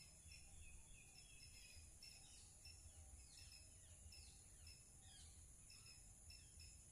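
Faint outdoor ambience: a steady high-pitched insect drone with short chirps repeating a few times a second, and birds giving quick falling calls through the middle.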